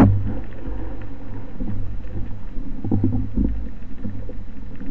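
Muffled underwater rumble picked up by a speargun-mounted camera, swelling a little about three seconds in.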